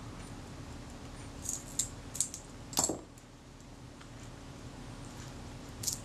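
About five small, sharp metallic clicks from a Synchro-Compur leaf shutter's levers being worked by hand while it is set up for a self-timer test. The loudest click comes near three seconds in.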